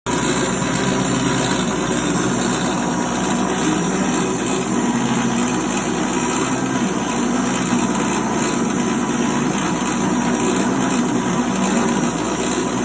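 CNC lathe running while turning a part: a steady machine hum with a faint constant high whine, unchanging throughout.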